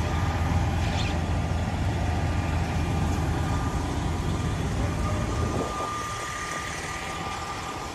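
Diesel engine of a parked fire ladder truck idling, a steady low rumble that fades away about six seconds in.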